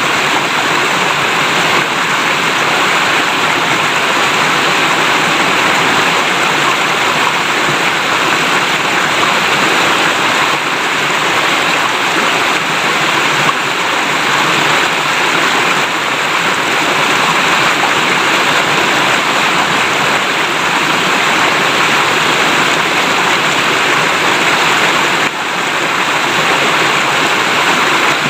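River water babbling steadily as it flows, with a brief slight drop in level near the end.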